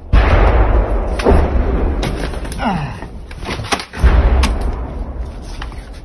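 Incoming 120 mm mortar rounds exploding: three heavy booms, at the start, about a second in and about four seconds in, each followed by a deep rumble that fades slowly.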